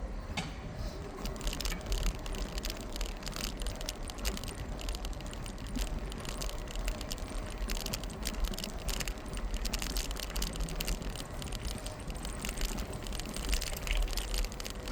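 Bicycle being ridden on a city street: a continuous run of rattling and ticking from the bike over a steady low rumble of road and wind noise.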